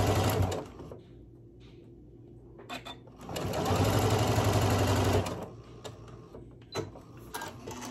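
Janome M7 computerized sewing machine stitching pieced quilt cotton in two short runs: one stopping about half a second in, a second of about two seconds in the middle. A few light clicks fall between and after the runs.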